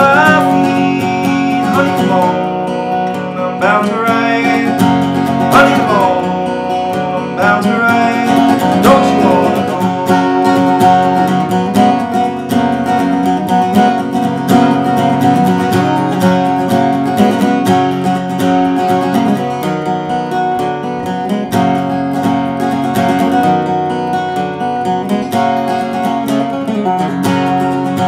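Solo acoustic guitar, picked and strummed in a bluegrass style. A man's singing voice carries over it for the first several seconds, then the guitar plays on alone.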